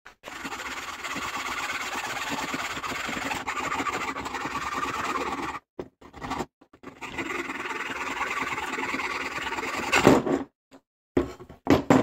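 A hand hacksaw cuts through a carbon electrode rod in steady, scratchy strokes, in two spells with a short break between them. Near the end there are a couple of louder knocks.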